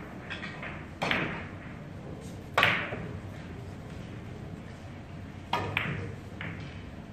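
A cue tip striking the cue ball and carom billiard balls clicking against each other and the cushions of a three-cushion table: a few sharp clicks with short ringing tails, the loudest about two and a half seconds in.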